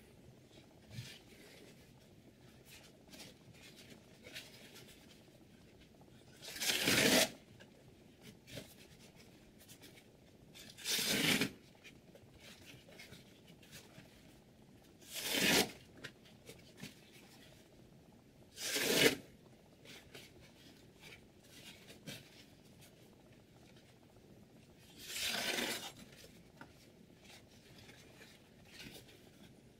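A freshly sharpened chef's knife slicing through hand-held paper towel five times, each cut a short tearing swish a few seconds apart, with faint paper rustling between; the slicing is a test of the edge's sharpness.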